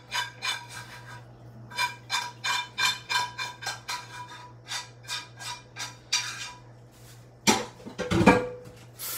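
Kitchen utensils striking metal cookware in a quick series of ringing taps, about three a second, followed by two louder clatters near the end. Right at the end a hot pan starts to sizzle as food goes into the oil.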